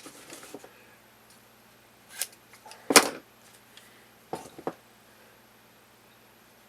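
Handling of tape and staples: a few short clicks and snips, the loudest about three seconds in, then quiet hand work.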